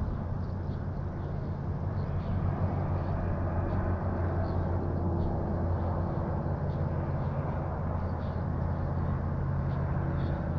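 A steady low machine hum, several low tones held over a background hiss, with a short knock right at the start.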